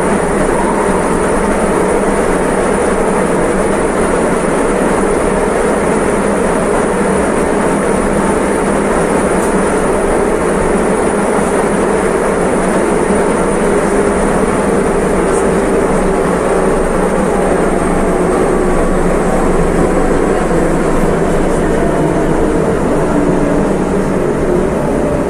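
CAF-built Istanbul M4 metro train running, a steady loud rumble of motors and rails. A thin high whine sits over it and slowly falls a little in pitch in the second half.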